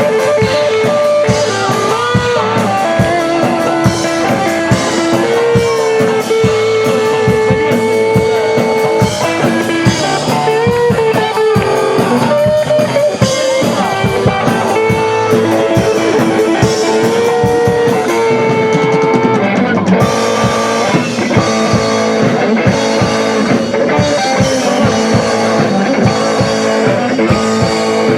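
Rock music with electric guitar and drum kit. A lead line holds and bends long notes over steady drumming, and the sound grows brighter and denser about twenty seconds in.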